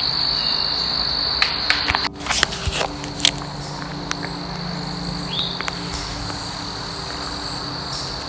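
Steady, high-pitched chorus of insects outdoors, with a few sharp clicks about one and a half to three seconds in.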